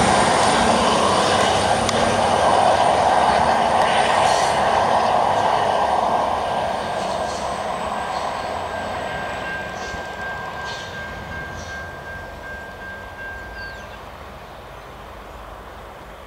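V/Line VLocity diesel multiple unit pulling away, its engine and wheel noise fading steadily as it draws off into the distance. A thin steady whine holds through the middle of the fade.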